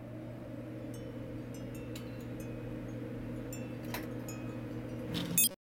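Sound-design drone for an intro card: a steady low hum with held tones above it and scattered faint, chime-like glints. It ends in a brief louder flourish, then cuts off suddenly near the end.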